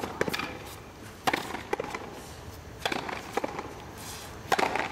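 Frontenis rally: the small ball cracking off rackets and off the fronton's front wall, about seven sharp hits, each echoing in the large court.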